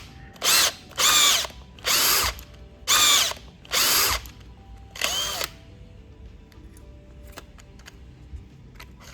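Power drill driving a self-tapping screw into a wood plug stuck in a hole saw, run in about six short trigger bursts roughly a second apart. The motor whine rises and falls in pitch with each burst. The bursts stop about five and a half seconds in.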